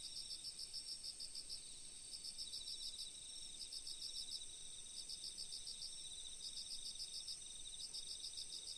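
Crickets chirping softly in short pulsed trills, about one burst a second, over a faint steady high-pitched insect tone.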